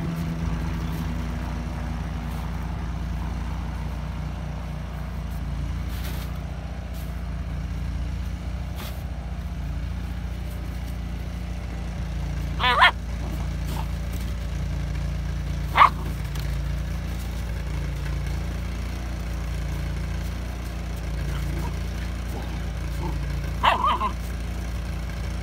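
Three short high squeaks from a husky puppy at play with its squeaky ball, about halfway through, three seconds later and near the end, over a steady low drone.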